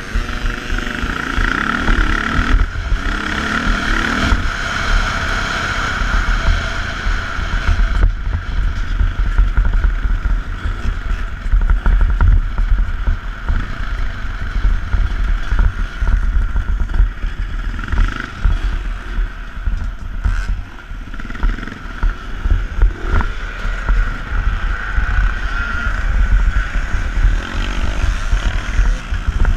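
Twinshock motocross bike engine running hard under the rider, its pitch rising and falling with the throttle, with heavy wind buffeting and bumps jolting the helmet-mounted microphone.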